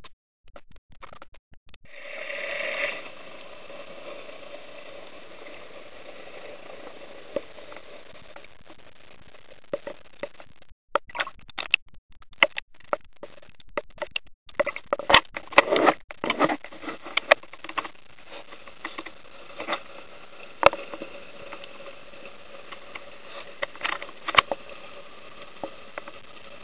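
Underwater ambience picked up by a submerged camera: a steady muffled hiss with a brief louder swell about two seconds in, then scattered sharp clicks and crackles that are densest around the middle.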